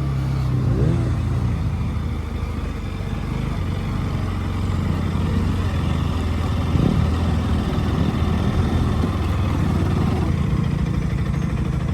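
Motorcycle engine running steadily on the move, with brief rises and falls in engine pitch.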